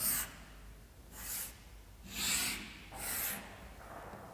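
Chalk scratching on a chalkboard as straight lines are drawn: a few short hissing strokes, each about half a second long and about a second apart.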